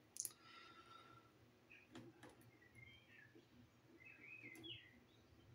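Near silence, with a few faint bird-like chirps and several light clicks.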